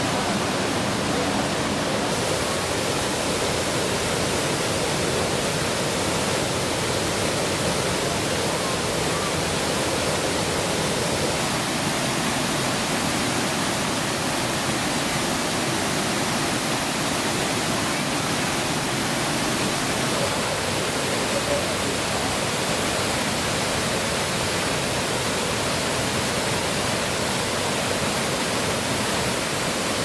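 Kuang Si Falls' water cascading over tiered travertine ledges into turquoise pools: a steady rush of falling water.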